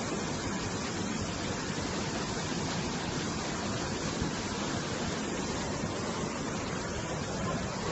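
A swollen, muddy river in flood rushing and churning over rocks and a small waterfall: a steady, unbroken rush of water.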